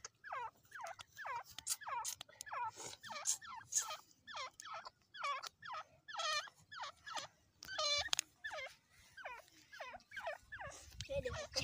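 Dakhni teetar partridge calling in a long, rapid series of short notes that slide downward in pitch, about two to three a second, with one rattling note about eight seconds in.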